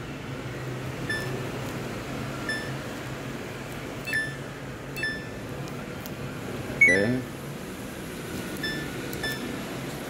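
Samsung WD21T6500GV washer-dryer control panel beeping as its buttons are pressed: about six short, high beeps a second or so apart, over a steady low hum. There is a brief louder sound about seven seconds in.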